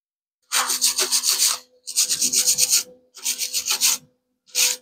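Hand tool scraped back and forth across a freshly welded metal part, cleaning up the weld: four rasping strokes starting about half a second in, the last one short, over a faint steady hum.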